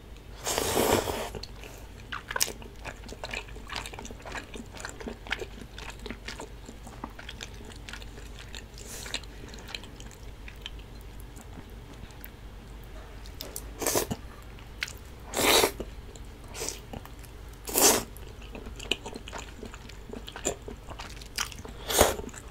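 Close-up eating sounds of cheese tteokbokki: soft, wet chewing and mouth clicks on chewy rice cakes. Louder slurping bursts come about a second in and several times near the end.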